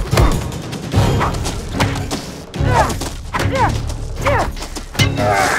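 Film fight sound effects: about four heavy punch and kick impacts a second or more apart, over an action music score.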